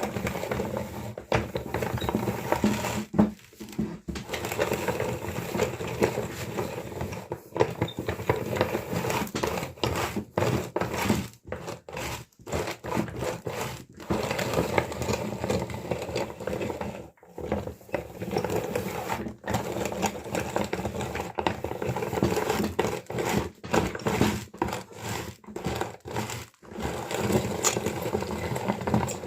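Meat grinder running and crushing small hard candies: a steady motor-like hum with crunching and crackling. The sound cuts out suddenly for a moment many times.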